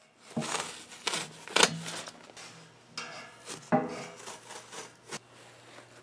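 Rustling and several knocks and scrapes from handling a plastic bag of rockwool against a steel bucket, with a faint steady low hum underneath.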